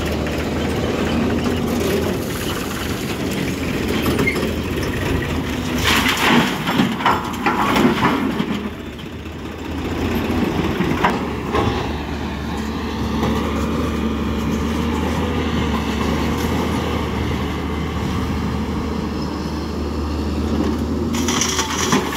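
Diesel engines of a crawler excavator and tractors running steadily, with clusters of knocks and clatters about six to eight seconds in and again around eleven seconds. Near the end, earth and rocks tipped from the excavator bucket into a tractor trolley rattle down.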